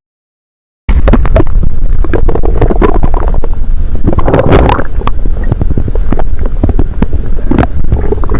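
Human stomach growling: a long, loud, crackly gurgling rumble that cuts in abruptly about a second in and keeps going.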